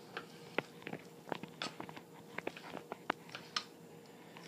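Knife cutting raw chicken breast into chunks on a plastic cutting board: a string of faint, irregular knocks, about three or four a second, as the blade goes through the meat and taps the board.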